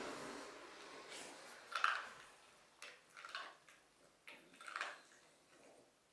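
Cavalier King Charles spaniel crunching dry kibble taken from a hand: a string of short, crisp, irregular crunches with brief pauses between them.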